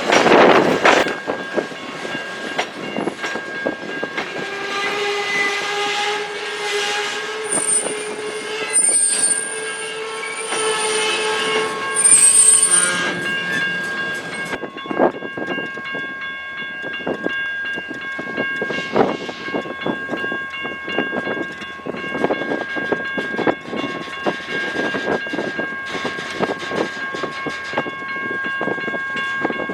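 A train rolling past, its wheels clicking over rail joints. A long horn blast is held for several seconds before cutting off about 13 seconds in. Steady high-pitched ringing from the wheels carries on after it.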